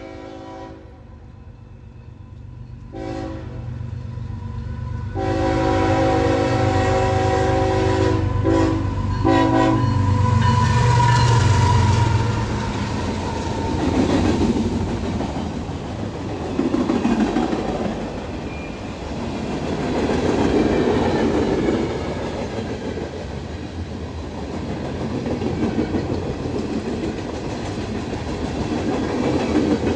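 A freight train passing: the diesel locomotive's air horn sounds in several blasts, long and short, over the first ten seconds or so. The locomotives' engines rumble past, loudest around ten to twelve seconds in. Freight cars then roll by with a steady clickety-clack of wheels over rail joints.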